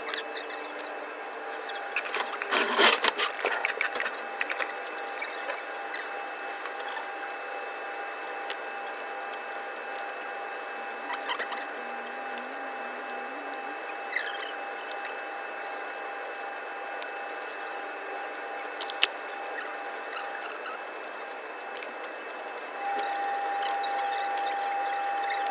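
Working kitchen background: a steady hum with a faint thin whine, a burst of clattering utensils and metal trays a few seconds in, and a few single clicks later.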